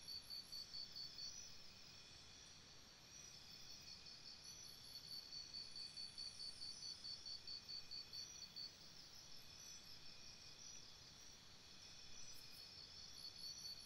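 Faint forest insects, cricket-like, chirping in a high, even pulsing trill of about six pulses a second, which stops twice for about three seconds each.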